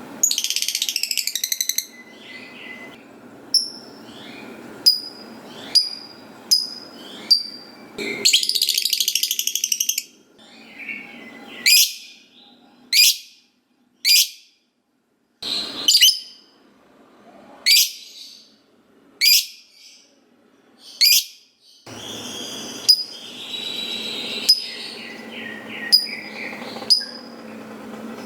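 Lovebird singing: two long, rapid chattering trills, the prized 'ngekek panjang', plus many short, sharp, high-pitched chirps about a second apart.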